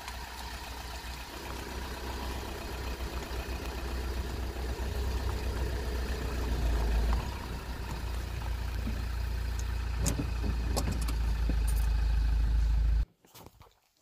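Wind buffeting the microphone: a steady low rumble that grows louder, then cuts off abruptly near the end, with a few short clicks shortly before.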